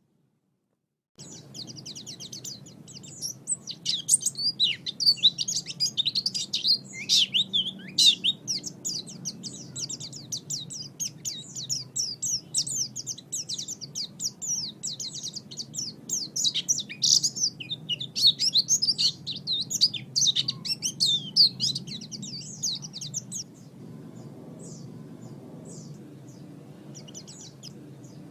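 White-eye (pleci) singing a fast, continuous twittering song of high chirps and trills. It starts about a second in and thins to scattered fainter chirps near the end, over a steady low background noise.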